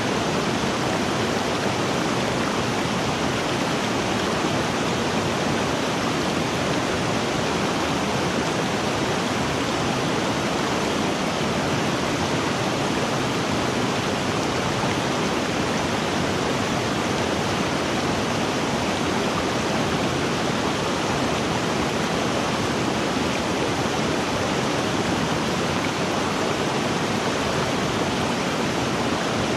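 River water rushing, a steady, even wash of noise with no change in level.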